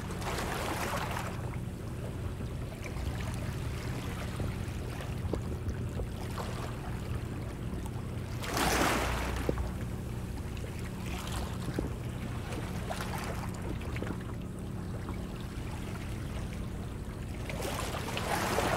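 Water lapping and splashing against a boat's hull, in a few louder washes, over a steady low motor hum.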